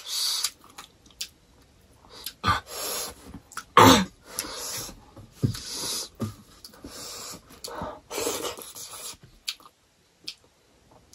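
Close-miked eating sounds: chewing and mouth smacks mixed with short breathy sniffs and puffs, with one sharper, louder sound about four seconds in.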